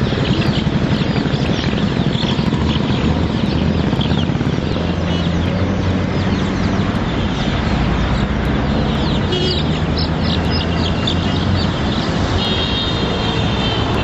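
A crowd of chicks peeping constantly, many short high chirps overlapping, packed in wire-mesh baskets. Under them runs a steady low rumble of road traffic, which is the loudest sound.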